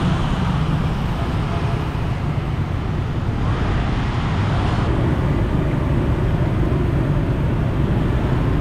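Street traffic noise: a steady wash of passing vehicles with no single one standing out.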